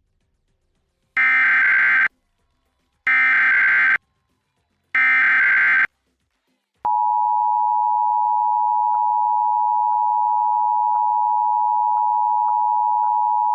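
Emergency Alert System test broadcast: three identical short bursts of SAME digital header data, each about a second long with about a second between them, encoding the Required Monthly Test. About seven seconds in, the steady two-tone EAS attention signal (853 and 960 Hz) begins.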